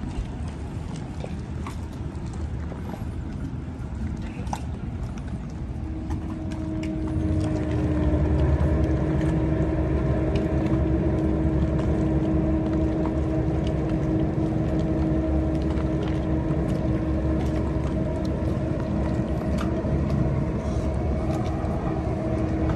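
A large sailing yacht's machinery running as it manoeuvres out of its berth: a low rumble that grows louder about six to eight seconds in, with a steady hum over it from then on.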